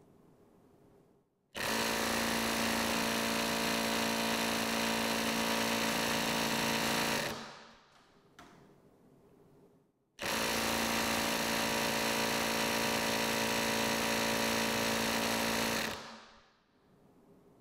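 Hilti SIW 6-22 cordless half-inch impact wrench hammering into a hydraulic torque tester in high mode: two steady bursts of about six seconds, with about three seconds of rest between, each tailing off as the trigger is released. These are the timed test runs, with the tester reading around 230 foot-pounds.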